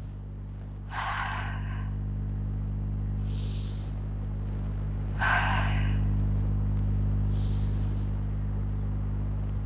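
A woman doing a deep-breathing exercise: slow, audible breaths drawn in through the nose and blown out through the mouth, as soft hisses about every two seconds, twice round. This is a breath-control drill for voice projection. A steady low hum runs underneath.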